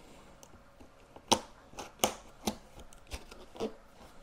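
Scissors snipping through packing tape on a cardboard box: five sharp snips at uneven intervals, starting about a second in, the first the loudest.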